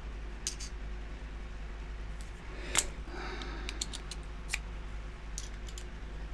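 Scattered small metallic clicks and taps from a padlock being taken apart by hand, the sharpest click coming about three seconds in.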